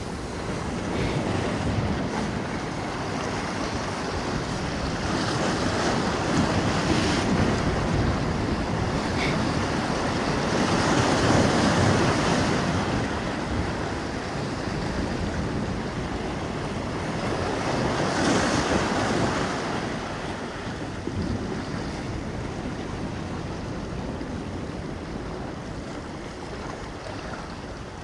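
Ocean surf washing over the rocks of a jetty and up the beach, with wind buffeting the microphone. The waves swell louder twice, once near the middle and again later.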